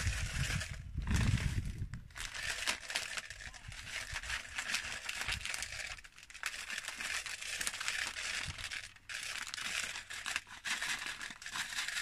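Plastic feed bag crinkling and rustling in the hands as it is opened and tipped to pour feed into a plastic feeder.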